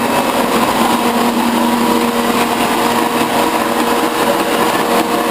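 A metal lathe and a metal shaper running together: a steady mechanical hum with a few held tones over a noisy drone.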